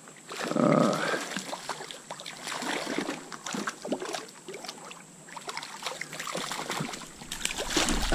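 Water splashing and sloshing in a shallow trout stream in irregular bursts, with many short splashes and a louder burst about half a second in.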